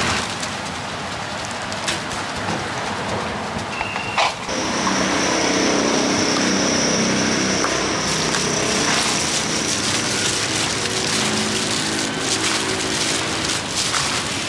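Street noise: a motor vehicle engine running close by over a steady rustling hiss, with a sharp click about four seconds in and a thin high whine for several seconds after it.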